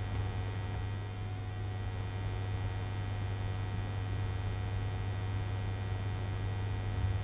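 A steady low electrical hum, like mains hum, unchanging throughout, with nothing else standing out.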